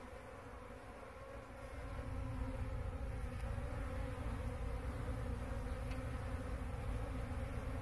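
Honeybees buzzing as a crowd around a sugar-syrup bucket feeder, a steady hum of many wings. A low rumble swells about two seconds in and stays.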